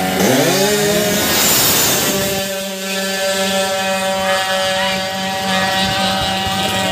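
Racing scooter engine revved in quick blips, then held at one steady high pitch for several seconds.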